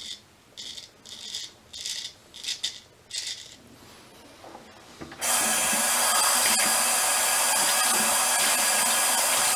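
Straight razor scraping through lathered stubble in about seven short strokes over the first few seconds. About five seconds in, a sink tap turns on and runs steadily, the loudest sound, for over four seconds.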